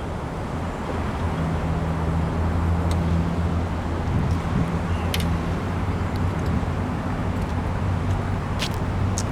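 Harley-Davidson Street Bob's 96-cubic-inch V-twin engine running steadily, growing louder over the first couple of seconds and then holding, with a few sharp clicks in the second half.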